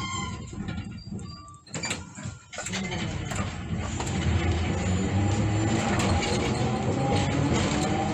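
Hiroshima Electric Railway 1150-class streetcar heard from inside the cab: wheels running on the rails with a low rumble. The noise drops away briefly about two seconds in, then builds again with a faint, slowly rising motor whine as the tram picks up speed.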